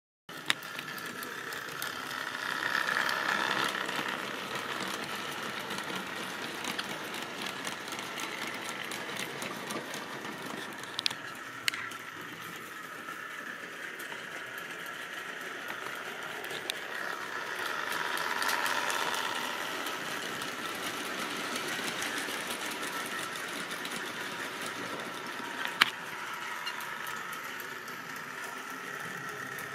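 Tri-ang model trains running on their track: a steady whir of the small electric locomotive motors and wheels. It swells louder twice, about 3 s in and again around 18 s, as a train passes close by. A few sharp clicks are scattered through it.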